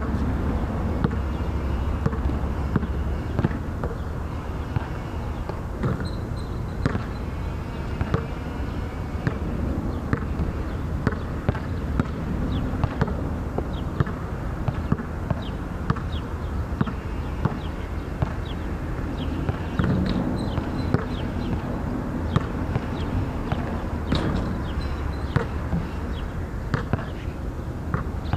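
A basketball bouncing on an outdoor hard court: sharp, irregularly spaced bounces all the way through, over a steady low hum.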